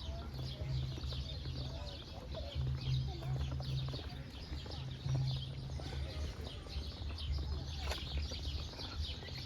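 Many birds chirping and calling in an aviary, a dense run of short high chirps throughout, over a steady low hum.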